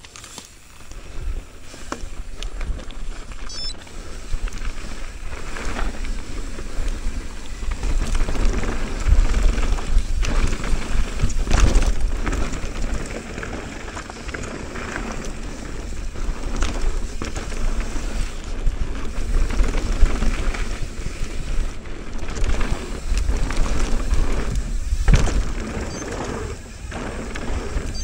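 Mountain bike riding fast down a dirt downhill trail: wind buffeting the microphone, tyres running over loose dirt, and the bike rattling, with several thumps from hard hits, the clearest about twelve seconds in and again near the end.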